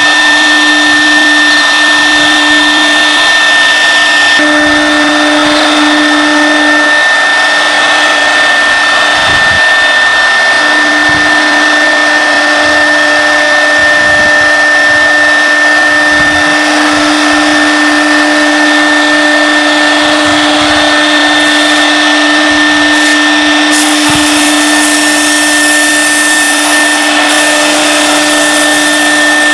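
APEX AP2030 CNC router spindle running while its bit cuts and engraves an MDF board: a loud, steady whine over a hiss of cutting. The high hiss grows stronger about three-quarters of the way in.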